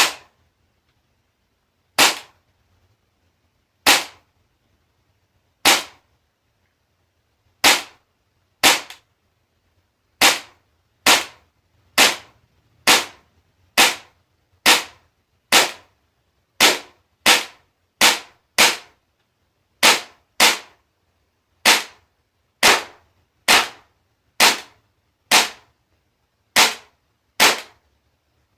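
Tokyo Marui H&K MP7A1 gas blowback airsoft gun firing about two dozen single shots, each a sharp crack that dies away quickly. The first few come about two seconds apart; from about ten seconds in they come faster, roughly one a second.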